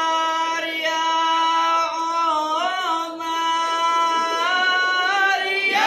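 A single male voice singing unaccompanied, holding long notes with a wavering, ornamented passage a little past the middle, then sliding upward just before the end: the solo opening vocal of a rebana ensemble before the drums come in.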